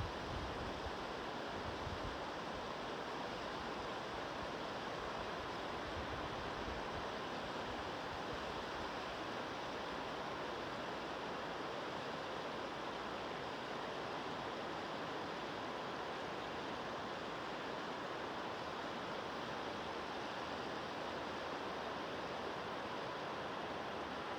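Mountain river water rushing steadily over its bed.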